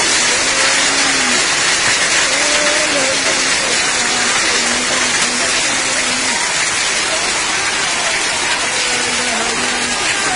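Heavy storm rain driven by wind, a loud, steady hiss, with faint voices beneath it.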